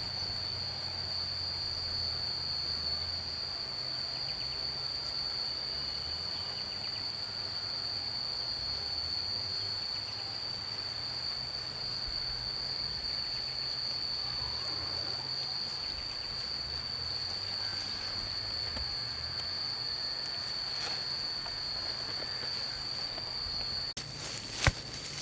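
A steady, high-pitched insect drone holds on one unbroken tone, with a low rumble beneath it. A few sharp clicks and rustles come near the end.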